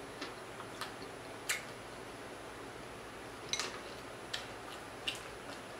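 Crispy fried croaker being picked apart by hand and chewed: a few short, sharp crackles and clicks at irregular intervals, the loudest about a second and a half in.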